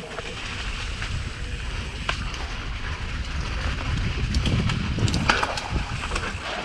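Mountain bike descending a dirt singletrack: a steady rumble of the tyres over roots and leaf litter with wind on the microphone, and sharp rattling clicks from the bike over bumps, clustered between about four and five and a half seconds in.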